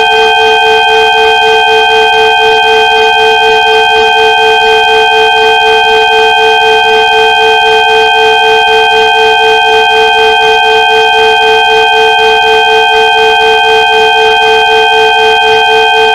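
Several steady electronic sine tones sounding together in a sustained chord, the lowest tone pulsing a few times a second: a synthesized healing-frequency tone track.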